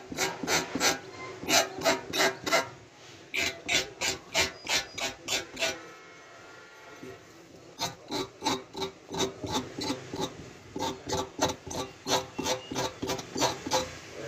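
Quick rasping strokes on truck tyre rubber, about four a second, in runs broken by a pause of about two seconds near the middle.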